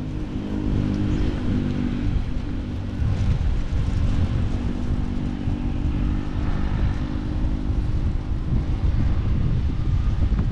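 An engine running steadily at an even pitch, under a heavy low rumble of wind on the microphone.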